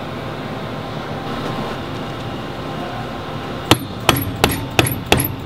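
Hammer or mallet tapping a bearing home into the magnetic particle brake's stator: five sharp taps about three a second, starting a little past halfway through, over steady background noise.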